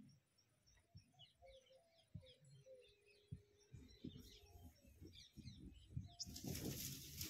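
Faint crackling and small pops of a trail of burning matchsticks, with birds chirping in the background. About six seconds in, a louder fizzing hiss sets in as more match heads flare.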